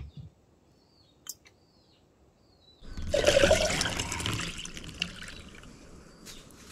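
Coconut water poured from a freshly opened coconut into a glass jug holding ice. It starts as a loud splashing rush about three seconds in and thins to a trickle. A single sharp knock comes at the very start.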